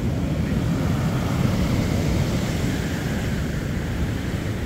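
Steady wind noise buffeting the microphone over the sea washing against the pier below.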